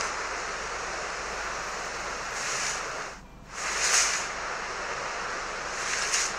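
Steady rushing background noise. It swells briefly twice and drops out for a moment about three seconds in.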